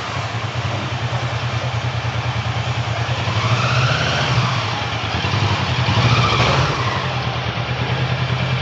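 Kawasaki Versys 650 parallel-twin engine running on a test ride over wind and road noise. The pitch swells up and falls back twice, about halfway through and again a little later.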